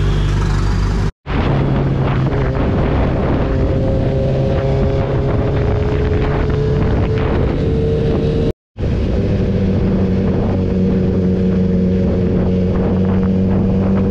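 Kawasaki Ninja 1000 motorcycle's inline-four engine running steadily in slow, jammed traffic, its pitch drifting slowly up and down, with some wind on the microphone. The sound cuts out completely for a moment twice: about a second in, and again about halfway through.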